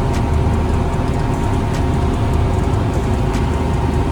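Combine harvester running steadily while harvesting corn, heard from inside its cab: a dense, even low machine rumble with a faint steady whine over it.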